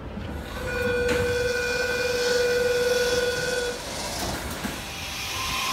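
Sydney Trains Waratah double-deck electric train standing at the platform as its doors open: an electronic door tone sounds steadily for about three seconds, with a clunk about a second in, and a second, higher tone starts near the end over the train's low rumble.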